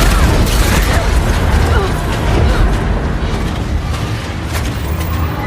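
Film sound design of a massive earthquake: a loud, continuous low rumble with crashes and booms of collapsing structures, and a few faint screams near the start.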